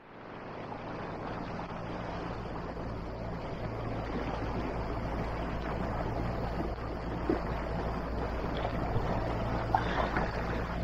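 A small boat under way on its motor: a steady low engine hum under a constant wash of water and wind.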